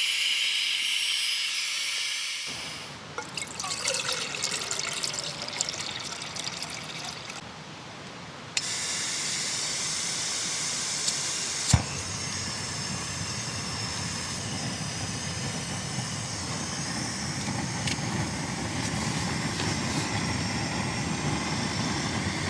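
Running water, a steady rush that begins abruptly about eight seconds in, after a stretch of handling clicks and rustling, with one sharp click a few seconds later.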